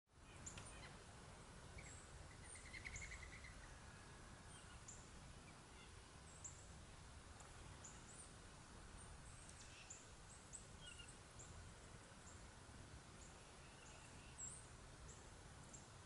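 Faint, frequent short high chip notes from small songbirds, with a brief trill about three seconds in, over a low steady background rumble.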